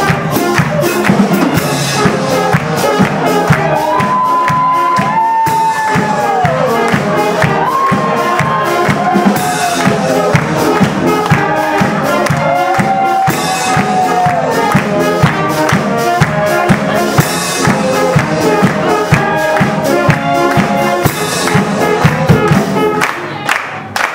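Live band music with brass playing a melody over a steady, fast percussion beat.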